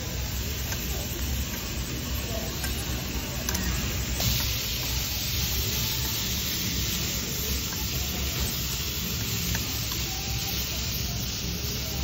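Pork belly, shrimp and onions sizzling on a hot flat iron griddle while they are turned with metal tongs. The sizzle is a steady hiss that grows brighter about four seconds in, with a few light clicks.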